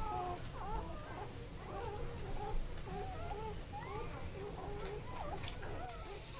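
Newborn puppies squeaking and whimpering as they nurse, a continuous chorus of many short, overlapping squeals that rise and fall in pitch.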